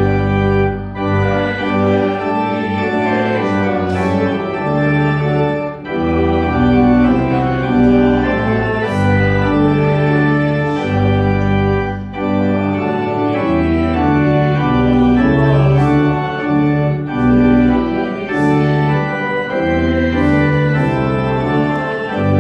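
Church organ playing sustained chords over deep bass notes, the harmony changing every second or so.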